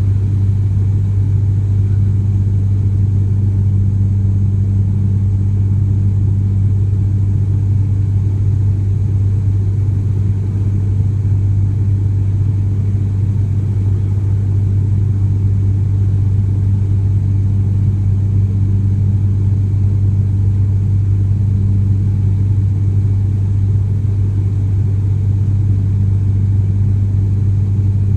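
Cabin drone of an ATR72-600's turboprop engines and propellers in the climb, heard from a seat beside the right propeller: a loud, steady low hum with a strong deep tone that holds constant throughout.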